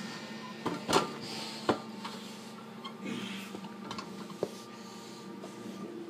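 Gym room tone: a steady low hum with a few sharp knocks and clanks, the loudest about a second in and another shortly after.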